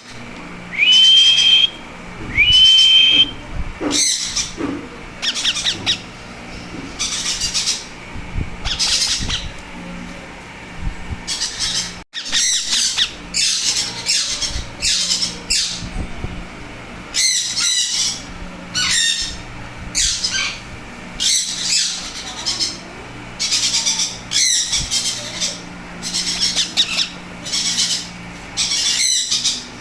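Baby Indian ringneck parakeets squawking over and over, harsh calls every second or two, with two clearer whistled calls, the loudest, near the start.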